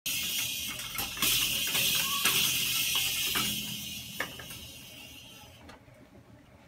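Toy drum kit being played: a few sharp taps and the thin metal toy cymbal ringing with a hiss-like shimmer that fades away over the last couple of seconds.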